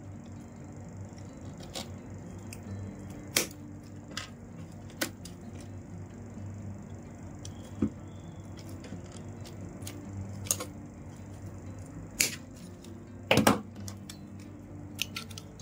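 Irregular clicks and light knocks, about ten in all, from PE plastic rattan strands and weaving tools being handled during basket weaving, over a steady low hum. The loudest is a double knock near the end.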